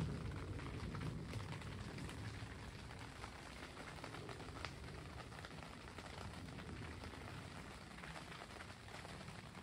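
Light rain pattering on tent fabric: a steady soft hiss with many small scattered ticks.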